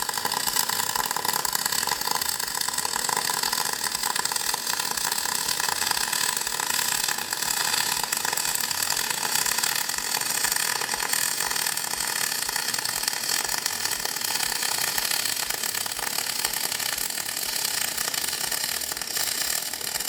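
MIG welding arc on aluminium: the Parweld XTM 211Di feeding 1 mm 5356 aluminium wire under pure argon, a steady crackling hiss held without a break.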